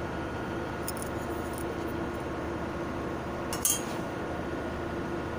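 Light clinks of a glass saucepan lid and a metal car thermostat being handled as the thermostat goes into a pan of hot water. One sharper clink comes about three and a half seconds in, over a steady background hum.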